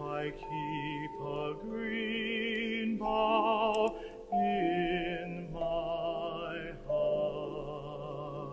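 Music: a voice singing a slow melody of long, held notes with vibrato over steady sustained accompanying tones.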